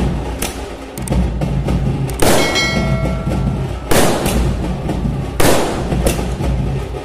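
Aerial firework shells bursting in a string of sharp bangs, one every second or two. One bang, a little after two seconds in, is followed by a brief ringing tone.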